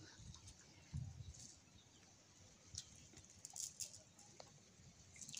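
Near silence, with a brief low rumble about a second in and a few faint high ticks later on.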